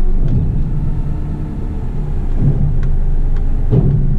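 Engine of an 8-wheeler twin-steer garbage truck running with a steady low rumble, heard from inside the cab; it eases slightly midway and swells again near the end, with a few faint clicks over it.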